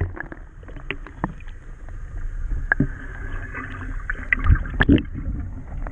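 Small fishing boat on the water: scattered knocks and clicks over an uneven low rumble, with a hiss in the middle.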